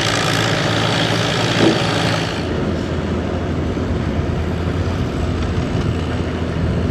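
Vintage farm tractor engines idling: first an Oliver row-crop tractor, then, from a little over two seconds in, a lower and steadier rumble from a Farmall.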